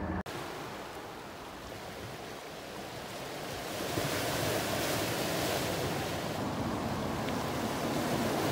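Small sea waves washing and breaking against rocks on a rocky shore, an even rushing wash with some wind on the microphone. It grows louder about four seconds in, where white surf breaks over the boulders.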